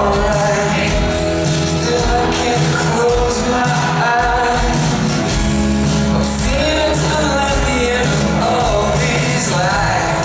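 Live rock band playing: a male lead vocal sings over strummed acoustic guitar, electric guitar, bass guitar and a drum kit.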